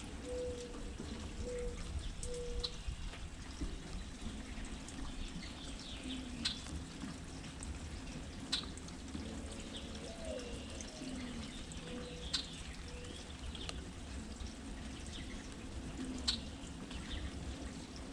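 Steady rain with heavy drops dripping every few seconds, while birds call now and then with short, low notes and some higher chirps.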